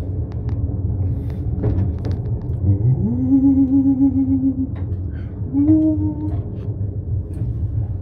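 Small old passenger elevator running during a descent: a steady low rumble with scattered clicks. About three seconds in, a tone rises and holds for about two seconds, and a shorter one follows about two seconds later.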